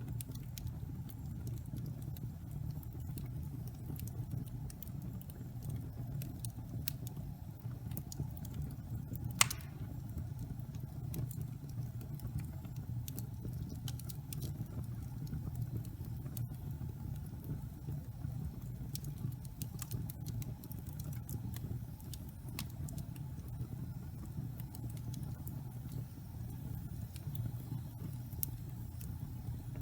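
Wood fire burning in a fireplace: a steady low rumble with scattered small crackles and one louder pop about nine seconds in.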